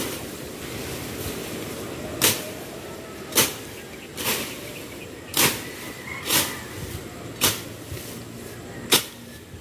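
Hoe chopping into soil and tangled vines, about seven strikes roughly a second apart starting about two seconds in, each a sharp thud with a rustle of leaves and dirt.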